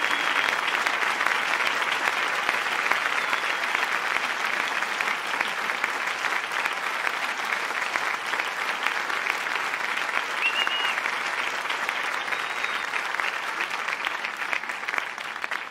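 Audience applauding steadily, a dense crackle of many hands clapping that fades out near the end.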